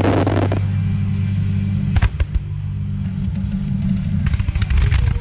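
Aerial fireworks bursting over a continuous low rumble: crackling at the start, a sharp bang about two seconds in, and a cluster of crackles and bangs near the end.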